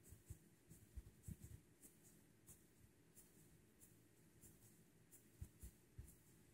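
Faint scratching of drawing strokes on paper, short strokes a few times a second, with soft low bumps of handling mixed in.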